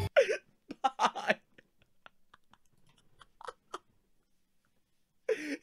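A man laughing helplessly: short breathy gasps and squeaks come in bursts, then after a pause of about a second and a half his laughter turns into a high, wavering wail near the end.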